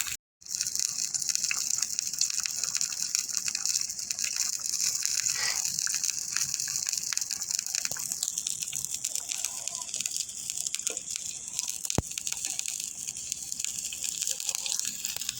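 Jaggery cooking in ghee in a pan over low heat, sizzling steadily with a fine crackle, with one sharp tick about twelve seconds in.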